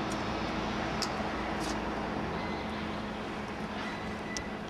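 Steady hum and rush of a standing electric locomotive, with its cooling fans and transformer running. A few short high chirps come through about a second in, again shortly after, and near the end.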